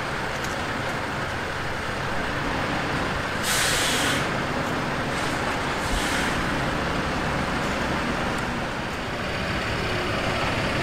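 Heavy diesel engines running steadily, with a loud hiss of truck air brakes about three and a half seconds in, lasting about half a second, and two fainter hisses soon after.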